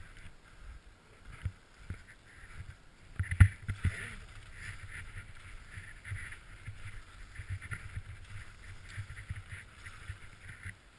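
Skis sliding and scraping over soft packed snow, with uneven low thuds and a sharp knock about three and a half seconds in.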